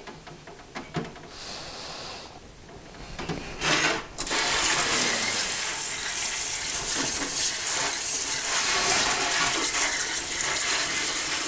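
Tap water running and splashing into a stainless steel sink over a two-stroke engine cylinder, turned on about four seconds in, after a few light knocks of the cylinder being handled in the sink.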